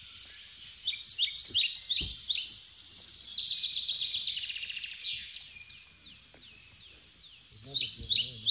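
Wild birds calling in a busy chorus of short, high, quickly repeated chirps, many sliding downward in pitch, thinning out for a couple of seconds past the middle and picking up again near the end.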